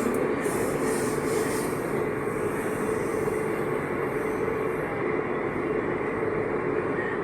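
AS-02 metro train running between stations: a steady rumble and hiss with a constant hum. A higher hiss in the first seconds fades away.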